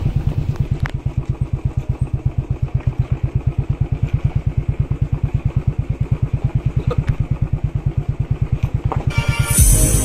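Motorcycle engine running at low revs with an even, steady beat of about ten pulses a second. Background music comes in near the end.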